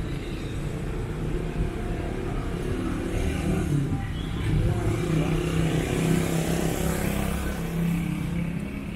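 Street traffic: a car engine running close by, with a swell of noise about six to seven seconds in as a vehicle goes past.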